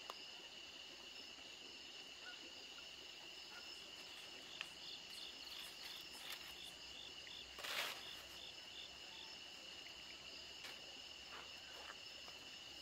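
Night insects trilling in a faint, steady, high chorus. For a couple of seconds mid-way a second insect chirps in a regular pulse, about three chirps a second. A brief rustle about eight seconds in is the loudest sound.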